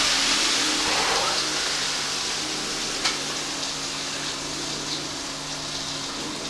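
Chicken pieces just dropped into hot oil in a kadai, sizzling with a steady hiss that slowly dies down. A faint steady low hum runs underneath, with a single small click about three seconds in.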